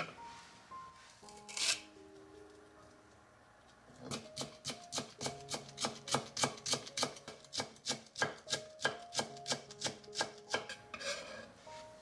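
Kitchen knife cutting through a white vegetable on a wooden cutting board, finely shredding it into thin strips. The strokes come quick and even, about three or four a second, starting about four seconds in. A single knock comes before them.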